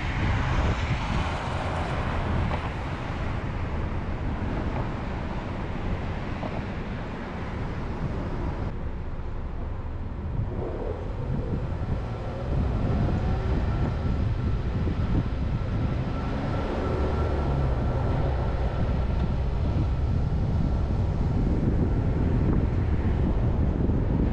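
Car driving, with steady road and engine noise. It eases off a little, then the engine note rises and the noise grows louder from about twelve seconds in as the car speeds up.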